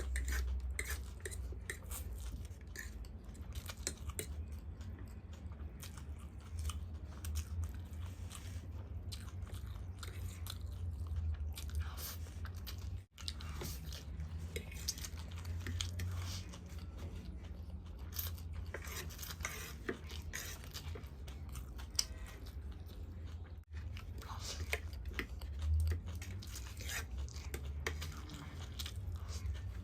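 A person chewing and biting food close to the microphone: wet mouth sounds with irregular crunches. The sound drops out briefly twice.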